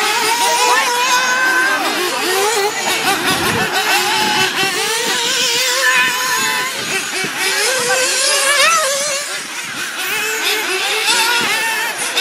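Several nitro RC buggies' small two-stroke glow-fuel engines running at high revs, their pitch rising and falling over one another as the cars accelerate and lift off around the track.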